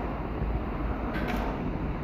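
Heavy wind and pouring rain of a sudden thunderstorm: a steady rushing noise with the wind rumbling on the microphone, and a couple of faint ticks a little over a second in.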